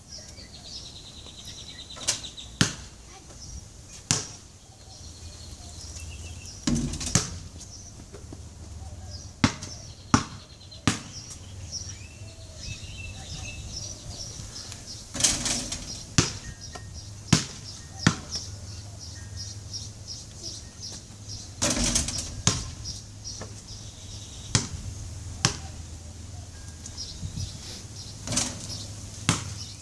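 A basketball bouncing on a concrete driveway and hitting the backboard and rim: a string of sharp, separate thuds every second or two, a few of them louder with a short rattle.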